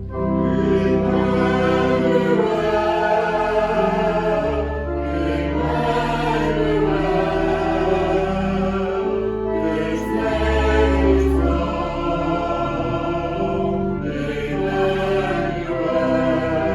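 Choir singing a hymn in held, sustained chords, with an organ accompanying.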